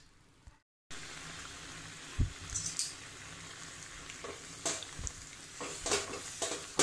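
Hibiscus-flower coconut pachadi bubbling and sizzling in a kadai, with a steel spoon stirring it and clicking against the pan several times.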